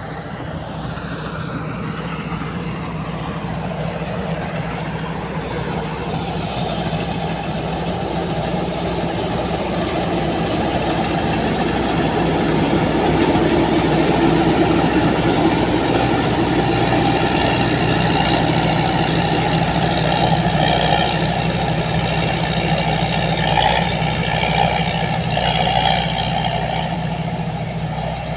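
Rice combine harvester running steadily: a constant engine drone with a broad mechanical noise on top, growing a little louder toward the middle.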